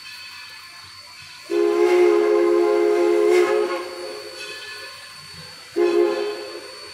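Steam whistle of locomotive #1702 blowing for a road crossing: one long blast of about two seconds, then a short blast near the end.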